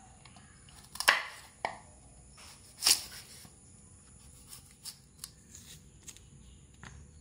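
A long knife chopping through whole cassava roots onto a wooden cutting board. There are two loud chops about one and three seconds in, then lighter knocks and handling.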